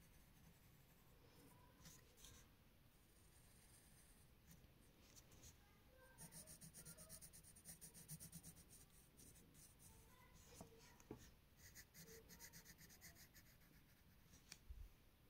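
Faint scratching of a pencil on paper: quick back-and-forth shading strokes, about five a second, in two spells.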